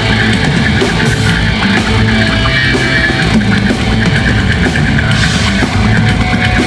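Live rock band playing an instrumental passage: distorted electric guitars over bass and drums, loud and continuous.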